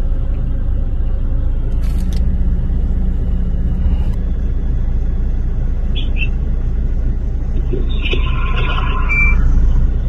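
Steady low rumble of road vehicles, with a few brief, fainter higher-pitched sounds about eight to nine seconds in.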